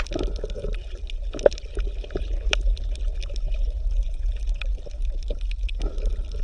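Underwater water ambience: a steady low rumble with many scattered sharp clicks and crackles.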